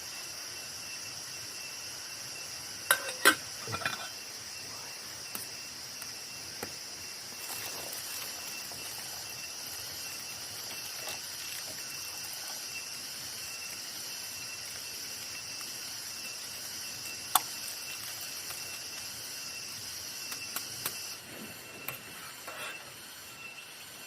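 Steady chorus of night insects, crickets, as a high even trill, which drops away about three seconds before the end. A few sharp clicks and clinks cut through it: a quick cluster about three seconds in, a single one later, and several near the end.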